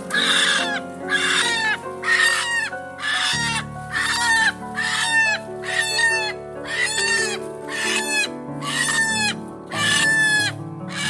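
Background music: sustained low chords under an evenly repeating pattern of short, bright, downward-sweeping notes, about one and a half a second.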